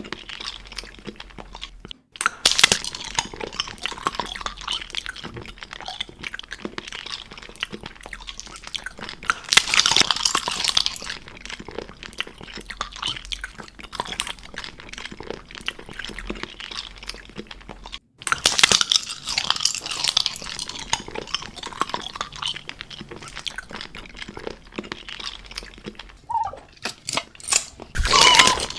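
Crunchy food being chewed close up: dense, irregular crunching and chewing, louder in a few stretches, with two brief breaks in the sound.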